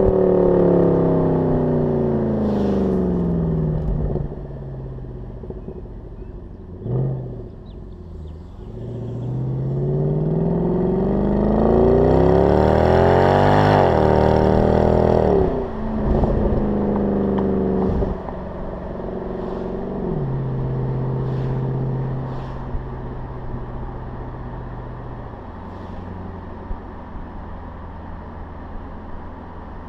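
Mercedes-AMG CLS 63 V8 exhaust heard right at the tailpipes. The note falls away at first, then climbs steadily for about five seconds under hard acceleration, peaks about halfway through and drops sharply when the throttle comes off. It settles in steps to a lower, steady cruising note, with a few short sharp cracks.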